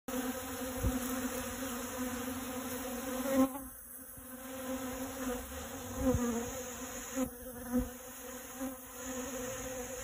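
Many honey bees buzzing as they forage at a flower: a steady hum, with a few louder swells as single bees fly close past.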